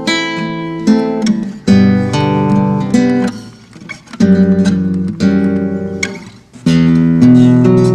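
Acoustic guitar playing, single notes and chords plucked and strummed, each left to ring before the next.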